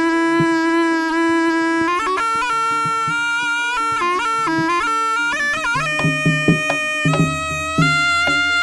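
Jaranan music: a slompret, the loud double-reed Javanese shawm, plays a held, ornamented melody over the ensemble. Drum strokes come in more strongly in the second half.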